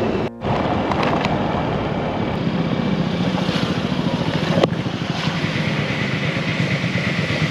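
Small single-cylinder engine of a Honda Ruckus scooter running steadily as it is ridden, with wind on the microphone. The sound drops out briefly near the start.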